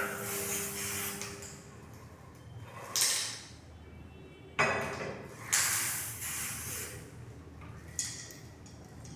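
Several short hissing bursts from an aerosol can spraying magnetic particle ink onto a weld during magnetic particle testing. A low steady hum sits under the first burst and stops after about a second and a half.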